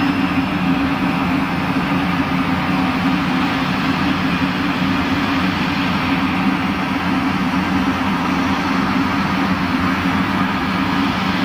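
Sukhoi Superjet 100's auxiliary power unit running with a steady low drone and hum, the jet parked with its beacon on before engine start.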